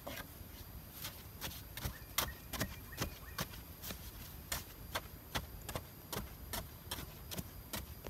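A hand tool striking and digging into packed earth at the base of a sapling, in sharp knocks about two a second, unevenly spaced, over a steady high hiss.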